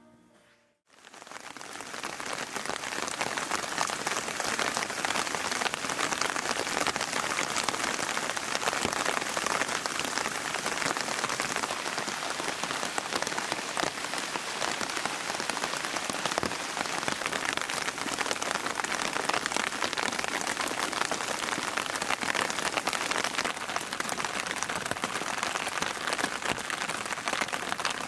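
Steady rain falling, a dense even hiss of countless drops, fading in about a second in and then holding steady.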